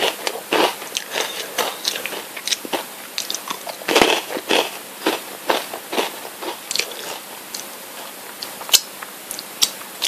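Crisp Calbee Jagabee potato sticks being bitten and chewed close to the microphone: a run of irregular, sharp crunches, the loudest about four seconds in.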